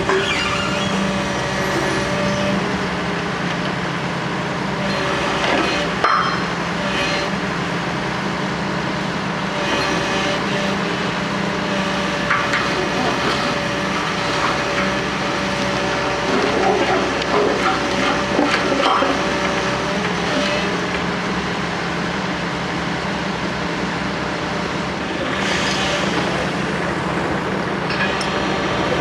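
Diesel engines of heavy construction machinery running steadily, with occasional clanks and short bursts of hiss.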